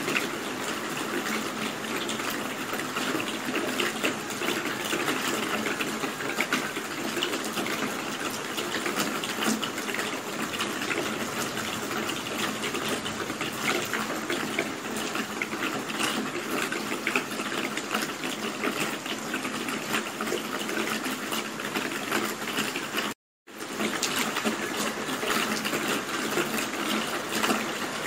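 Steady rain falling: a dense even hiss of many drops, with tiny ticks of single drops through it. It is broken once by a split-second gap of silence near the end.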